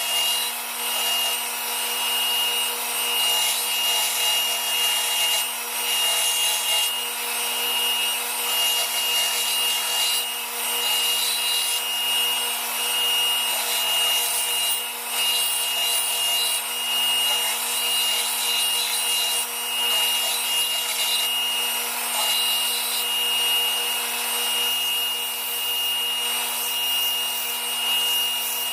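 Electric sander running steadily with the steel of a knife blank pressed against it, the grinding noise swelling and easing as the blade is worked.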